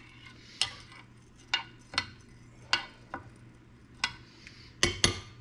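A tablespoon stirring rice, condensed soup and chicken stock in a baking pan, clinking against the pan about once a second, with faint stirring noise between the clinks.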